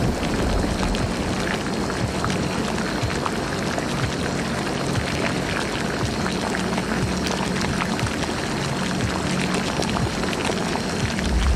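Bubbling liquid sound effect, a dense run of small pops and ticks, over a low, steady music drone.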